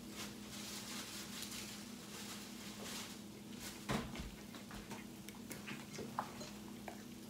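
French toast sizzling on an electric griddle, a steady hiss, with one knock about four seconds in and a few light clicks after, like a utensil against the griddle.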